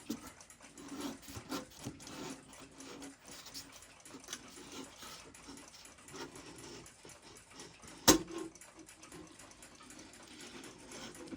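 Soft scraping and rubbing as a thin mylar strip is worked around the edge of a stuck clock dial to find its tight spots, with small handling clicks and one sharp click about eight seconds in.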